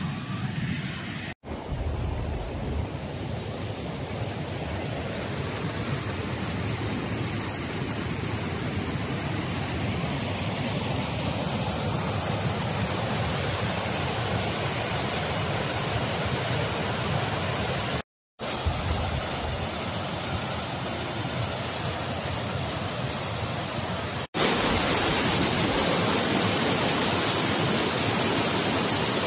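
Waterfall pouring over a stone wall and splashing onto the rocks below: a steady rush of falling water. It is broken by two brief gaps and grows louder from about 24 seconds in.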